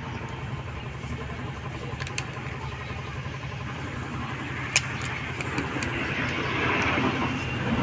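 Small sharp metallic clicks of a screwdriver working on a motorcycle's handlebar switch housing, the loudest about two-thirds of the way in, over a steady low engine hum; a louder rushing noise builds near the end.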